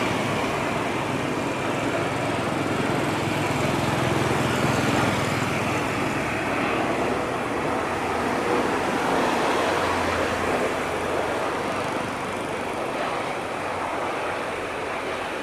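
Airbus A350-941 airliner's Rolls-Royce Trent XWB jet engines, a steady rumble slowly fading after it lands.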